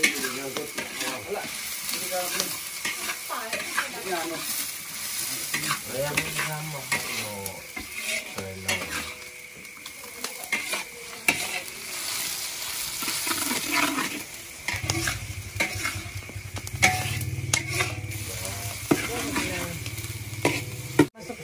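Metal spatula scraping and clacking against a large steel wok as food is stir-fried, with a steady sizzle of frying beneath.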